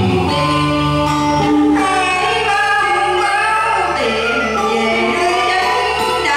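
A song: singing with instrumental accompaniment, in long held notes that glide between pitches.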